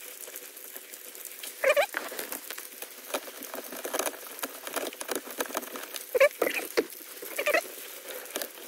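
Screws being turned in by hand on the plastic blower-resistor mount of a heater housing: scattered light clicks and scratching, with a few short squeaks about two seconds in and again around six to seven seconds in.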